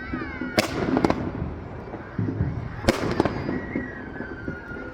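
Aerial fireworks bursting: two loud booms, about half a second in and about three seconds in, each followed by a brief crackle.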